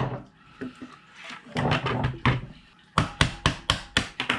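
Small hammer tapping a pin punch to drive a pin out of an airsoft rifle: sharp metallic taps, a few scattered at first, then a quick run of about six a second in the last second and a half.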